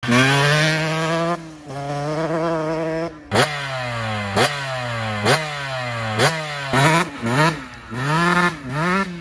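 KTM EXC 300 TPI two-stroke engine being revved. It holds a steady high pitch for about a second, then gives a series of quick throttle blips about once a second, each rev shooting up and sliding slowly back down, with shorter blips near the end.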